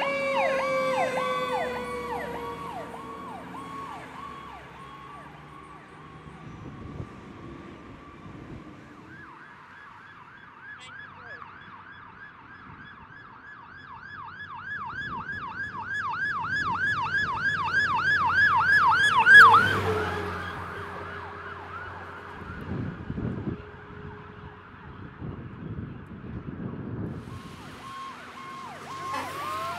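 Fire trucks' electronic sirens on fast yelp, about two and a half sweeps a second. The first fades away, then a second grows louder as its truck approaches and cuts off with a loud burst about twenty seconds in. A low steady tone follows briefly, and another siren starts to wail near the end.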